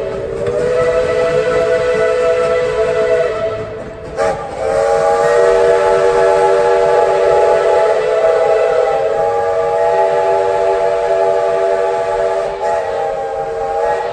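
Steam locomotive's multi-chime whistle sounding several notes together in a long blast. It breaks off about four seconds in with a brief toot, then blows again in a long steady blast that stops near the end.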